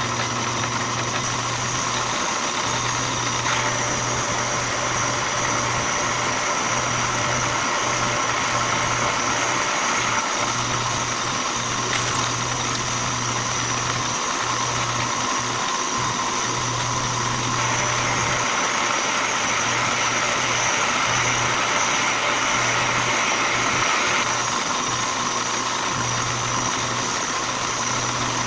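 Metal lathe running steadily under power, a low motor hum with a steady high whine, as a carbide threading tool takes a light finishing pass on a 5/16-24 left-hand thread cut in a steel drill-rod screw.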